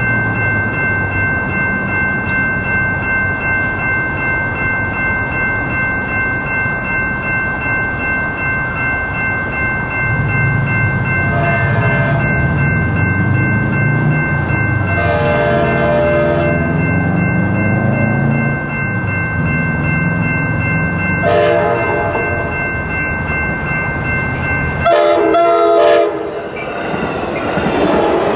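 Amtrak Surfliner passenger train approaching a grade crossing, its leading cab car's horn blowing the crossing signal: long, long, short, long, the last blast the loudest. A steady ringing of the crossing bells runs underneath. Near the end the train rolls past with a rushing clatter of wheels on the rails.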